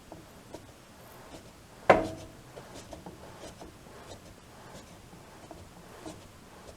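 Handling noise: scratchy rubbing and small scattered clicks, with one loud clunk about two seconds in that rings briefly.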